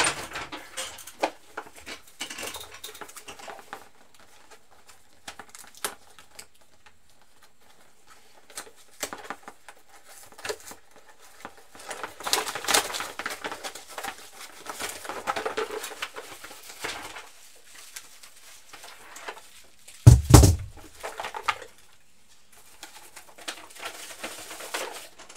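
Handling noise from a computer keyboard being swapped out: scattered clicks and knocks, a noisier rustling stretch in the middle, and one heavy thump about twenty seconds in.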